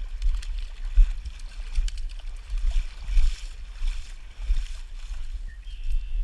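Footsteps rustling and crunching through dry grass and brush on a bank, over a low, uneven rumble of wind and movement on the body-worn microphone. The rustling comes in patches, busiest in the middle.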